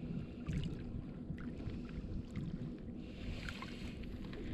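Motorboat engine running steadily under way, with rushing water and wind noise; a burst of hiss, like spray, about three seconds in.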